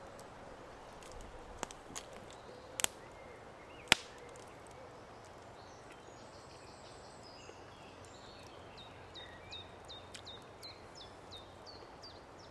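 Small woodland birds calling, ending in a run of about a dozen quick, falling chirps over the last few seconds. Three sharp clicks come in the first four seconds, the last the loudest.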